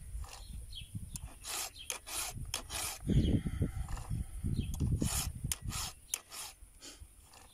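Chainsaw chain being sharpened by hand with a round file in a file guide: a series of rasping file strokes on the cutter teeth, broken by short handling noises as the chain is pulled along the bar to the next tooth.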